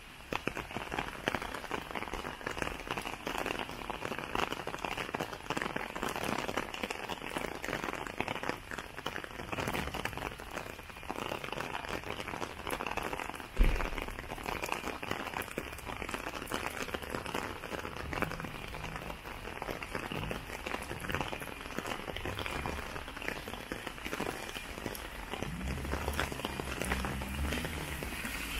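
Steady rain falling, a dense pattering of drops, with a single thump about halfway through and a low hum joining near the end.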